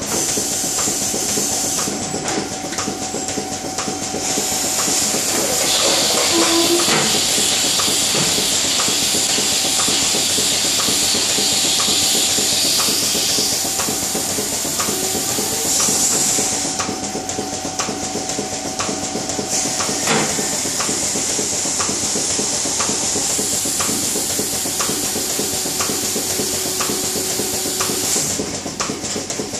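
Robotic milking machine running: a steady air hiss that swells and fades, over a steady hum and an even rhythm of sharp clicks.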